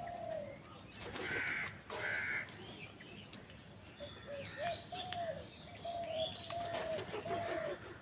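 House crows calling: short, arched caws repeated about every half second through the second half, with two louder, harsher calls about one and two seconds in.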